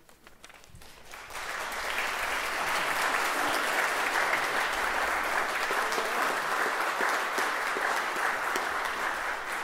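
Church congregation applauding. The clapping starts about a second in, swells quickly and then holds steady.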